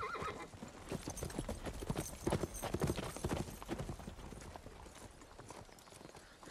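Horses' hooves clip-clopping, a dense run of irregular hoofbeats from several ridden horses that thins out and fades toward the end.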